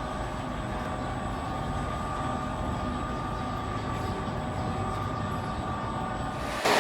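Heavy machinery running steadily with a low rumble and a faint held whine. About six and a half seconds in it changes abruptly to a louder, harsh hissing noise.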